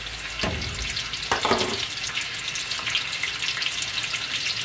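Sliced onions sizzling and crackling in hot vegetable oil in a large pot, a steady frying hiss.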